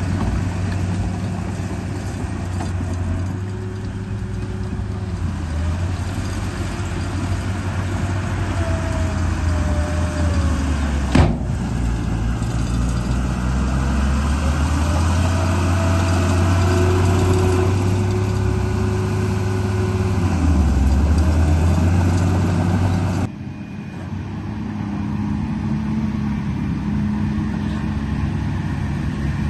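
Motor of a radio-controlled construction truck running: a steady low hum with a whine that rises and falls in pitch as it works. There is a single sharp click about eleven seconds in, and the sound changes abruptly about twenty-three seconds in.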